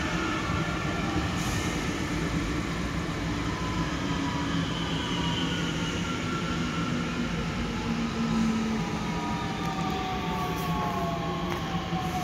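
Red regional electric multiple unit running along the station tracks: a steady rumble of wheels on rail with an electric motor whine that falls in pitch during the second half.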